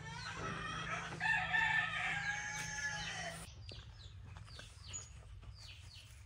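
A loud, drawn-out bird call, held for about three seconds with its pitch rising and then falling, stops about halfway through. Short, falling chirps of small birds repeat throughout.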